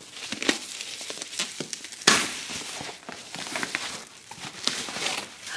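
Thin white wrapping crinkling and rustling as it is pulled off a handbag, with irregular crackles and a louder rustle about two seconds in.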